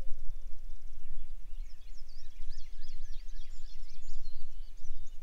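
Several songbirds singing faintly, quick high chirps and glides overlapping from about a second and a half in, over a low steady rumble.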